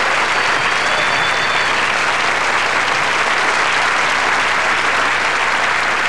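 Audience applauding steadily, with a thin high tone in the first couple of seconds.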